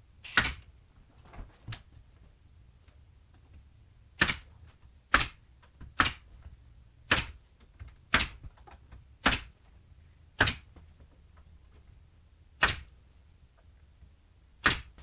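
Pneumatic nail gun firing about ten times, each shot a sharp crack, irregularly spaced about a second apart, as nails are driven into the wooden carcass of a sideboard.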